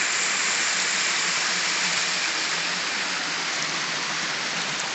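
Steady rushing hiss of creek water pouring over a small waterfall, easing slightly in level.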